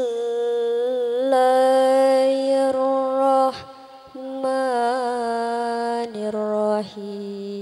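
A Qur'an reciter's voice in melodic tilawah style, drawing out long, ornamented notes with small wavers in pitch. It breaks off briefly about three and a half seconds in, then carries on and settles on a lower, steady note near the end.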